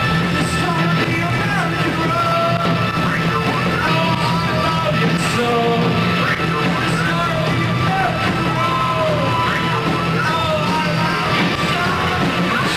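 Rock band playing live at full volume, with lead vocals over a dense, steady wall of band sound.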